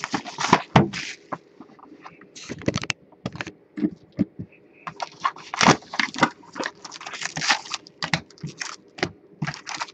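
Plastic shrink-wrap crinkling and tearing as it is stripped from a box of trading cards, then the rustle of the cardboard box and foil card packs being handled, in irregular crackling bursts that grow busier about halfway through.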